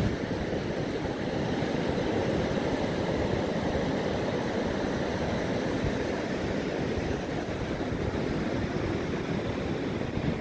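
Surf washing onto a sandy beach, a steady rush of breaking waves, with wind buffeting the microphone.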